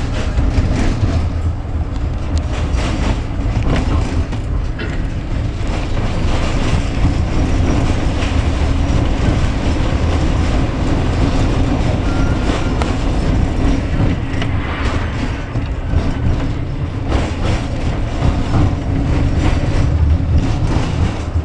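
Tram running along its track, heard from inside the car: a steady low rumble with scattered irregular clicks and knocks from the wheels on the rails.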